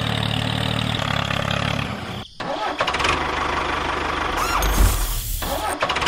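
Tractor engine idling with a steady low throb. About two seconds in it breaks off briefly, then gives way to a rougher engine run with a few short squeaky rising-and-falling glides.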